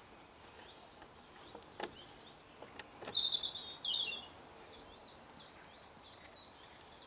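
A bird chirping in the background: a run of short, high, mostly falling notes from about three seconds in. A couple of sharp little metal clicks come just before, as the circlip is prised off the turntable's idler spindle.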